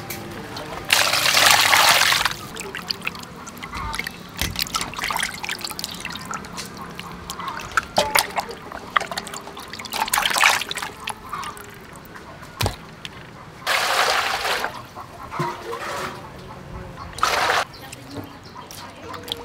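Water sloshing and splashing in a metal bowl as hands wash a raw beef heart and chunks of beef, with small wet clicks throughout and four louder splashes spread through the stretch.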